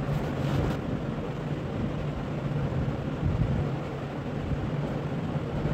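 Steady background noise with a low, even hum underneath, without distinct clicks or knocks.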